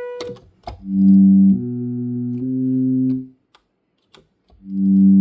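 OSCar monophonic synthesizer playing a low three-note phrase, each note held for just under a second. After about a second of silence it starts the same phrase again. Faint key clicks sound between the notes.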